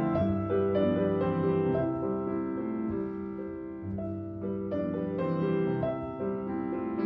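Background piano music: a melody of single notes and chords struck about twice a second.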